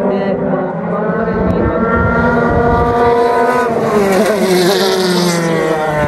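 JAF F4 formula race car engine running at high revs, its note climbing steadily and then falling away as the car goes past.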